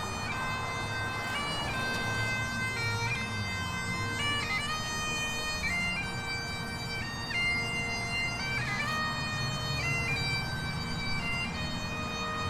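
Bagpipes playing a melody of held notes, with quick ornaments at each note change, over a steady drone.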